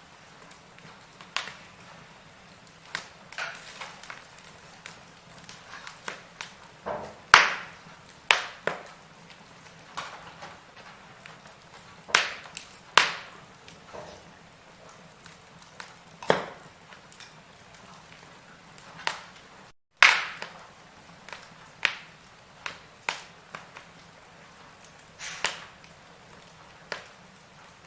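Wood fire in a fireplace crackling, with irregular sharp pops over a faint steady hiss.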